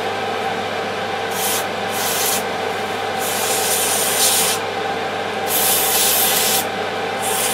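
Aerosol electrical solvent cleaner sprayed in about five short hissing bursts, each starting and stopping sharply, onto a corroded radio tuning capacitor. A fume extractor fan hums steadily underneath.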